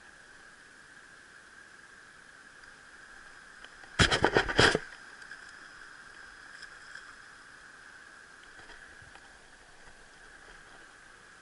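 A hooked trout thrashing at the surface: a brief burst of splashing about four seconds in, over a steady faint high hum.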